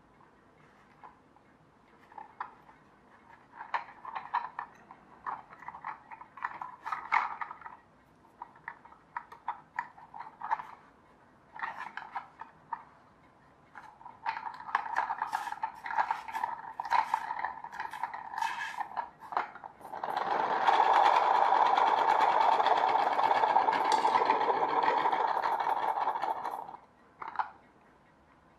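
Small plastic clicks and rustles as a 3D-printed rubber band car is handled and its rear axle wound. About twenty seconds in comes a steady whirring buzz for about six and a half seconds, which stops abruptly: the wound rubber band unwinding and spinning the skewer axle with its CD wheels in the 3D-printed axle tubes.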